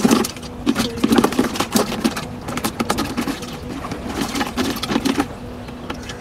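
Dense, irregular clicking and rustling from hands handling things in a plastic basin, stopping a little after five seconds in.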